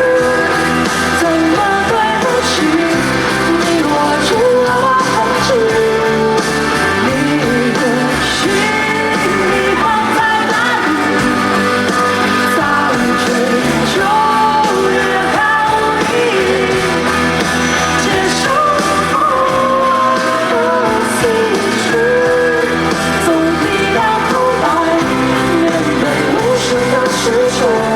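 Live pop-rock band playing loudly without a break, with sung melody over guitar, bass and drums.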